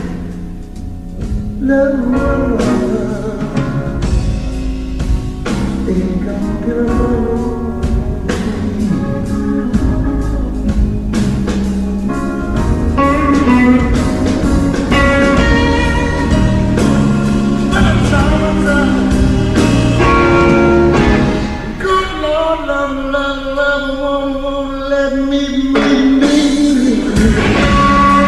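Live blues band playing: electric guitar over bass and drums, with a voice singing.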